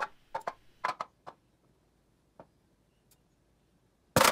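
Aluminum beer bottle-can buckling inward under atmospheric pressure as the steam inside condenses, played at about three times speed. A quick run of sharp clicks and pops comes in the first second and a half, then a lone click, then a louder crunch near the end.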